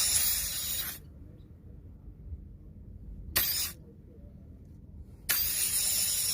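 Pressurised nitrogen blasting through an air conditioner's capillary tube in hissing bursts, flushing the line clean. One blast cuts off about a second in, a short puff comes near the middle, and another strong blast starts near the end.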